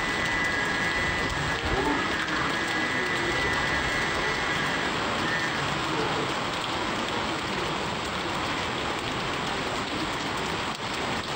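Heavy rain pouring down, a steady dense hiss of drops striking a wet road and ground.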